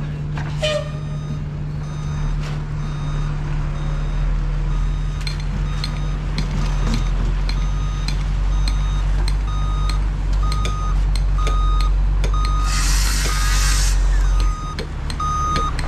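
Heavy truck backing up, its engine running steadily and its reversing alarm beeping in an even rhythm, clearest in the second half. A burst of air hiss, like an air brake, comes near the end, and the engine rumble drops right after.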